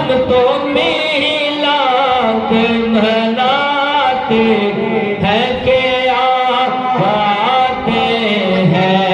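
Male voice singing a naat unaccompanied, in long drawn-out melismatic phrases over a held vocal hum.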